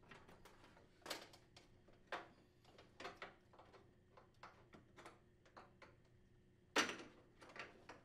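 Faint, scattered clicks and knocks of plastic and metal as a washer tub's suspension rod and its white plastic support cap are twisted and worked free by hand, with the loudest knock late on.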